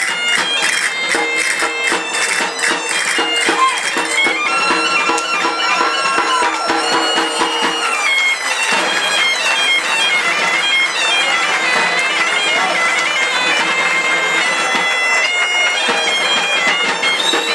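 Asturian bagpipe (gaita) playing a dance tune over its steady drone. Rhythmic clicking sounds along with it during the first four seconds.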